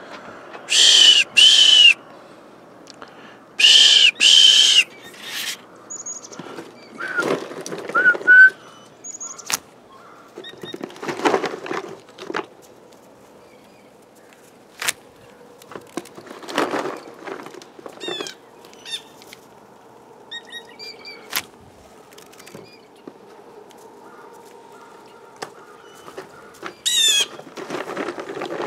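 Blue jays calling: two pairs of loud, harsh screaming calls in the first five seconds, then scattered softer calls, including short rising whistled notes around eight seconds in, with the soft whoosh of wingbeats as jays fly in and out.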